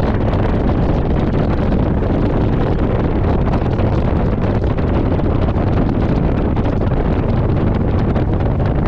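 Steady wind rushing over a GoPro microphone on a motorcycle riding on a wet road, with the motorcycle's engine running underneath.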